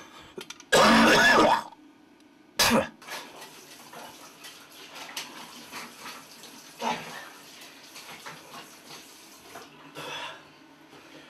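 A man loudly clearing his throat over a bathroom sink about a second in. This is followed by a steady hiss of tap water running into the sink for several seconds, with a few short throaty noises over it.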